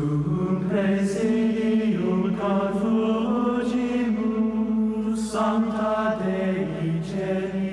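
Voices singing a slow chant in long held notes that step from one pitch to the next, the series' title theme music.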